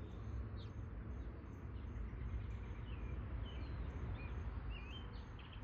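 Outdoor ambience: a steady low rumble with a few faint bird chirps from about halfway through.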